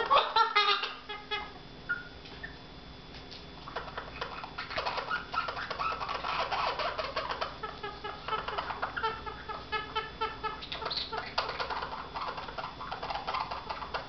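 White-capped pionus parrot giving strings of short, rapidly repeated harsh calls, several a second, starting loud and pausing briefly about two seconds in before starting again.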